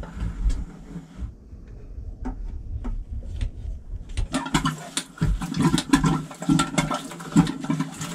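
Water from under a boat's engine gurgling and splashing into a plastic bucket from a hand pump, starting about four seconds in with uneven spurts. Before that, only a few handling clicks and knocks.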